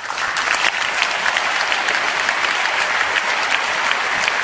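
Audience applauding steadily: dense clapping at a constant level.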